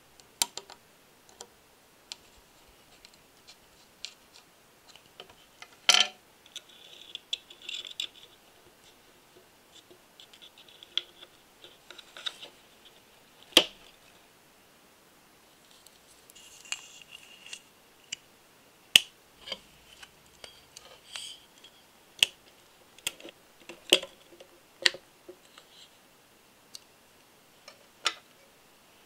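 Small metal and plastic parts of a model engine kit being handled and fitted by hand: scattered sharp clicks and taps of tweezers, screws and parts, with a few short stretches of scraping between them.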